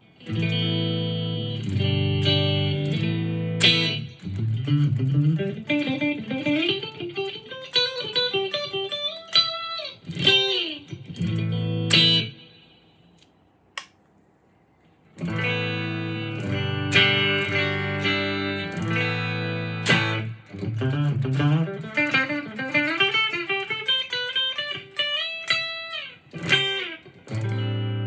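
LUXARS S-G62 headless electric guitar being played: held chords, then a quick rising run of single notes and a few more chords. After a short pause about halfway, the same phrase is played again.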